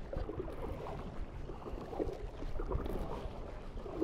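Double-bladed kayak paddle strokes dipping into the water, with water splashing and gurgling around the hull of a plastic sit-on-top kayak, in uneven splashes.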